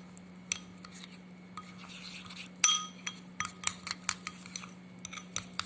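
A spoon stirring a creamy mix of ground flaxseed, sugar and olive oil in a bowl, clinking against the bowl about a dozen times. The loudest clink comes a little under three seconds in.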